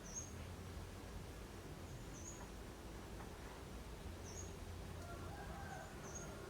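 Faint, short, high chirp repeated about every two seconds, typical of a small bird calling, over a steady low background hum.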